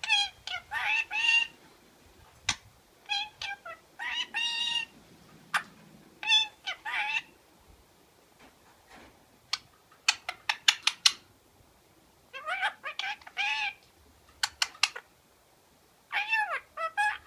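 Indian ringneck parakeet talking and chattering in a string of short phrases with bending pitch. About ten seconds in, and again around fifteen seconds, it breaks into runs of rapid clicks.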